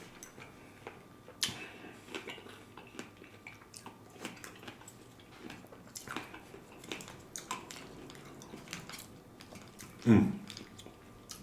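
A small spoon clicking and scraping against a dish of fruit and ice, in short irregular taps while someone eats; a louder clink about one and a half seconds in and a heavier thump about ten seconds in.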